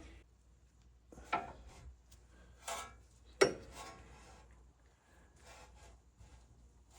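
Short rubbing and scraping handling noises, with one sharp click about three and a half seconds in, as grease is worked into the inside of a new rubber power steering boot.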